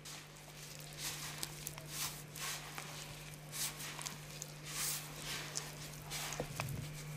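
Hands rubbing and pressing crumbly semolina-and-egg dough against a pastry board, a repeated scraping and rustling about twice a second, over a steady low hum.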